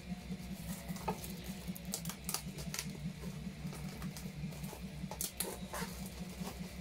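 Vinyl record sleeves and paper inserts being handled: scattered scratchy rustles and short clicks and taps, over a steady low pulsing sound in the background.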